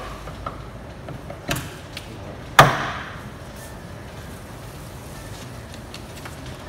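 Knocks and a clank of metal work in a car's engine bay while an engine hung on a shop crane chain is guided into place: small knocks about half a second and a second and a half in, then a loud clank with a brief ring about two and a half seconds in.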